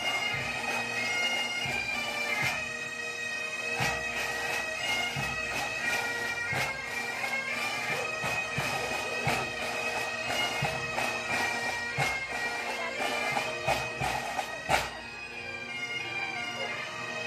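A marching pipe band playing: bagpipes carry a melody over their steady drone, with snare and bass drums beating in time.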